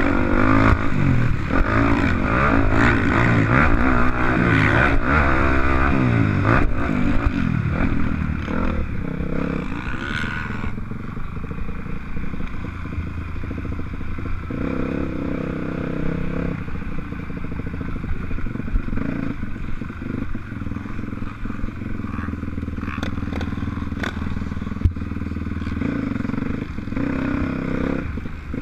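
Motocross bike engine revving up and down hard for the first ten seconds or so, its pitch rising and falling with the throttle, then running steadier and a little quieter.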